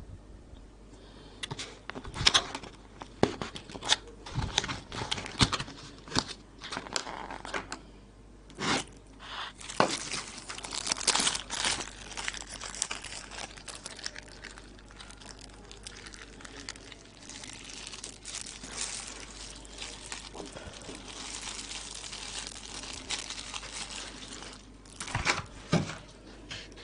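Thin plastic packaging crinkling and tearing: a takeaway bowl's plastic lid pulled off and small plastic bags of koshary toppings torn open and squeezed out over the bowl. Sharp crackles come in quick runs through the first half and again near the end, with softer steady rustling in between.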